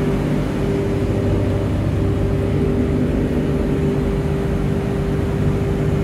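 Steady machinery hum of the running S3-900 freon (R22) refrigeration compressors and their electric motors, with a few constant low tones held unchanged throughout.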